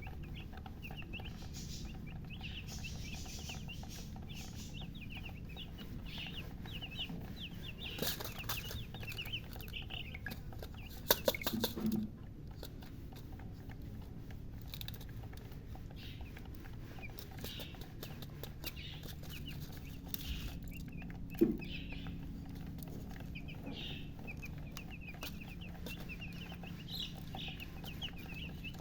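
Newly hatched chicks peeping in many short, high chirps over a steady low hum. A few sharp knocks come in a cluster near the middle, with one more about three-quarters of the way through.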